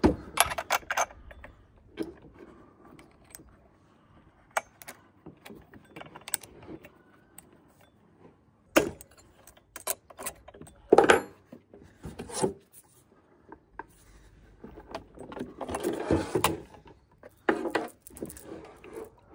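Irregular metallic clicks, clinks and knocks of a Stihl MS261C chainsaw's rim sprocket and clutch drum being handled and worked on with a tool, with a few louder clatters and a longer rattling stretch near the end.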